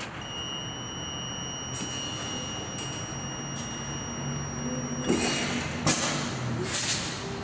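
Fire engine cab warning buzzer sounding a steady high tone with the ignition on and the engine off, stopping about five and a half seconds in. Then come short bursts of air hissing and a knock as the air brake controls are worked and the foot brake pedal is pressed.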